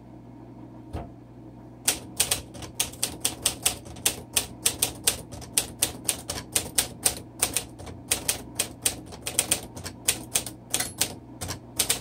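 1951 Smith Corona Silent manual typewriter being typed on at a steady pace, about four to five keystrokes a second, after a single click about a second in. Near the end of the line the margin bell sounds a faint, high 'dink' rather than a full ding.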